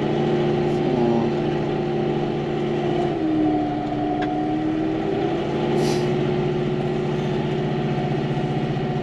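Diesel tractor engine running steadily while plowing snow; its engine speed sags about three seconds in and picks back up a couple of seconds later.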